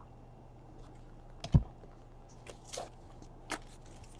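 Trading cards being handled on a table: light clicks and rustles of card stock as cards are moved and flipped, with one soft thump about a second and a half in.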